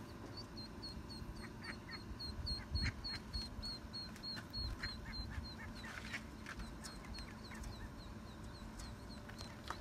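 Ducklings peeping: rapid, evenly spaced high peeps, about three or four a second, loudest in the first half and fainter after about five seconds. These are the calls of ducklings separated from their mother and stuck in a storm drain.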